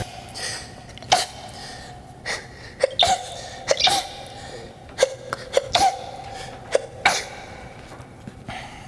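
A person sneezing again and again: about ten short, sharp sneezes over several seconds, some in quick pairs.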